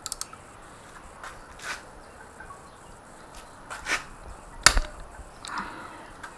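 Scattered clicks and knocks of tools and engine parts being handled during a motorcycle top-end teardown, with the sharpest knock about four and a half seconds in.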